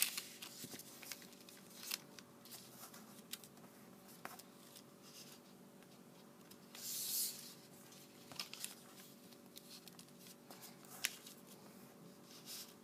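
A sheet of origami paper being folded and creased by hand on a table: soft scattered rustles, taps and crease presses, with a longer sliding rustle about seven seconds in. A faint steady hum underneath.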